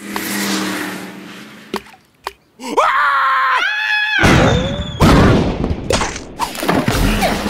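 Animated cartoon sound track: a character's loud wordless yell about three seconds in, rising then held, among noisy sound effects with a low rumble and a few short vocal glides.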